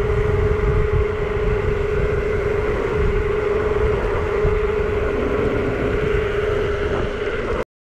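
Wind buffeting the camera microphone while a Specialized Turbo Levo electric mountain bike rolls along asphalt: a fluctuating low rumble under tyre hiss, with a steady mid-pitched whine running throughout. It cuts off suddenly near the end.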